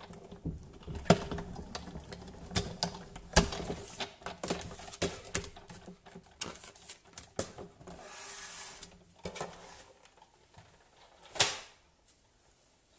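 Big Shot manual die-cutting and embossing machine being hand-cranked, its plates and an embossing folder feeding through the rollers with irregular clicks and knocks. Later comes a brief soft rustle, and one sharp knock near the end.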